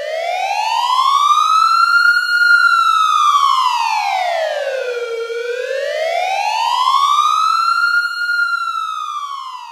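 A wailing siren that slowly rises and falls in pitch twice, each full cycle lasting about six seconds, fading in at the start and out near the end.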